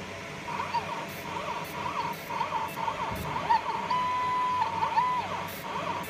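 Fiber laser marking machine's scanning head at work on anodized aluminium bird rings: a quick series of high chirps sweeping up and down around one pitch, with a steady held tone about four seconds in.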